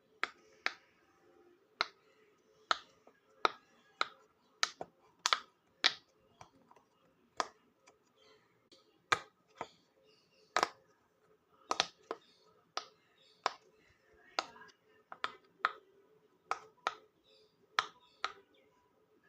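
Silicone pop-it fidget toy having its bubbles pressed one at a time, giving sharp pops at an uneven pace, roughly one every half second to a second.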